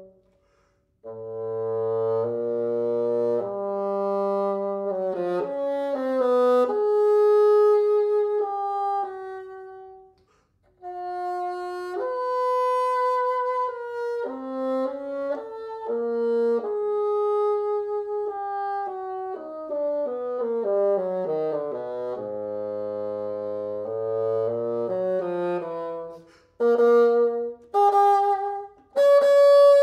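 Solo bassoon playing a slow line of held notes in its low and middle register, with short breaks between phrases. Near the end the notes become shorter and detached.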